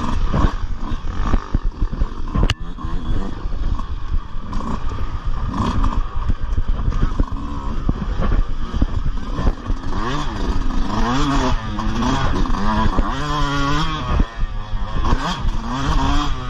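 Yamaha dirt bike engine heard from the rider's seat, revving up and down as the throttle is worked on and off, the pitch rising and falling several times in quick succession in the second half. Clattering knocks from the bike over a rough, rooty trail, with one sharp click about two and a half seconds in.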